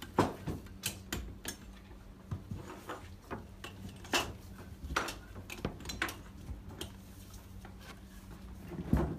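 Scattered metallic clinks and knocks of copper pipe and hand pipe benders being handled and set down on workbenches, over a steady low hum.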